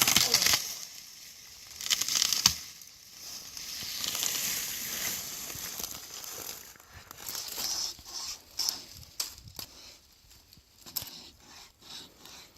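Pocket wire saw rasping through a small tree trunk in uneven strokes, followed by a run of sharp snaps and crunches.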